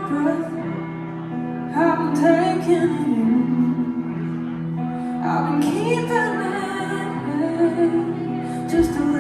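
A woman singing over a held instrumental accompaniment, with sung phrases entering about two seconds in and again about five and a half seconds in.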